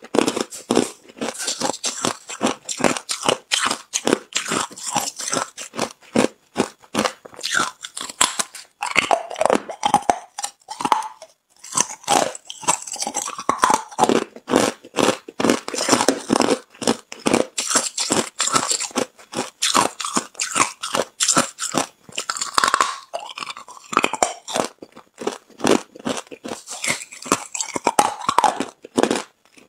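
A person biting and chewing hard clear ice, a dense run of sharp cracking crunches as the ice breaks between the teeth, with a short pause about eleven seconds in.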